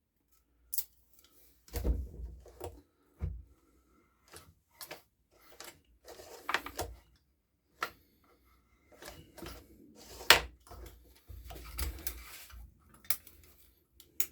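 Irregular clicks, taps and knocks of small metal tools and engine parts being handled during valve-clearance work on a small four-stroke engine, with a few heavier thumps.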